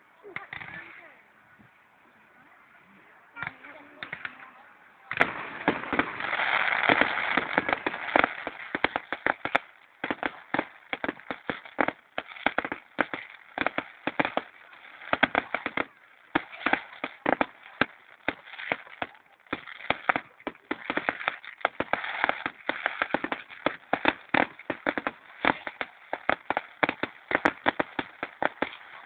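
Fireworks crackling: after a near-quiet lull of about five seconds, a dense run of rapid sharp pops and crackles, many a second, that goes on without a break.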